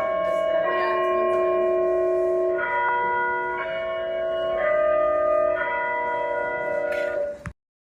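School bell chime playing a slow tune of ringing bell notes, a new note about once a second, each note overlapping the last. It cuts off suddenly near the end.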